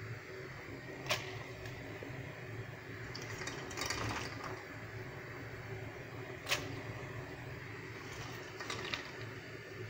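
Handfuls of chopped purslane being lifted from a metal colander and dropped into a pot of boiling water. A few sharp clicks and taps, a couple of seconds apart, sound against the metal, over a steady low hum.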